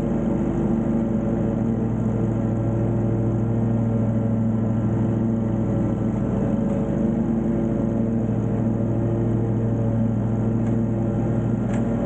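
Wright Intensity 36-inch stand-on mower's engine running steadily at an even speed while mowing.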